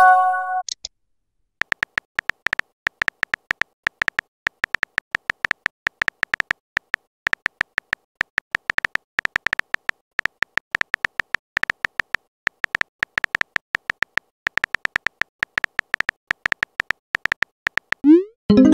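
Texting-app sound effects: a short synthesized chime at the start, then a long run of rapid keyboard-tap clicks as a message is typed letter by letter. Near the end, a rising swoosh and another chime as the message is sent.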